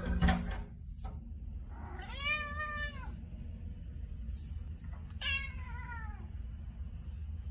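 White Persian cat meowing twice: a long meow about two seconds in, rising then falling, and a shorter, falling meow about five seconds in. A brief loud noise comes right at the start, and a low steady hum runs underneath.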